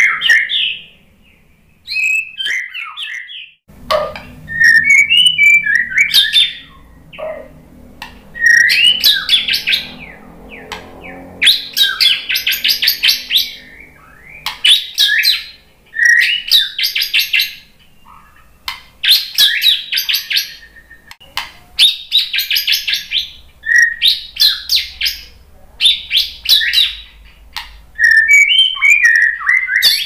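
White-rumped shama singing: a few varied whistled notes at first, then a regular run of loud phrases, each a second or two of rapid trilled notes, with short pauses between them, and varied notes again near the end.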